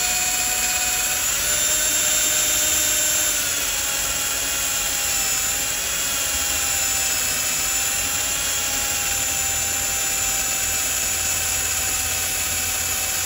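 Electric drill running at slow speed, turning a Time-Sert counterbore cutter into the face of a Subaru EJ25 aluminium engine block. A steady motor whine that dips and recovers slightly in pitch a couple of times as the cutter works under light pressure.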